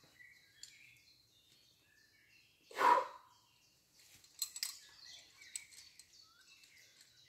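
Birds chirping faintly, with a person's short, loud cry about three seconds in and a quick run of sharp clicks a second or so later.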